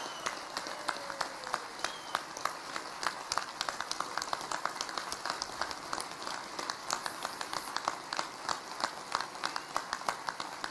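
Crowd applauding: a steady run of many hands clapping.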